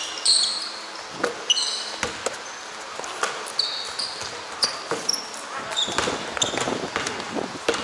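Basketball bouncing on an indoor gym floor with irregular knocks throughout, mixed with short high squeaks of sneakers on the court.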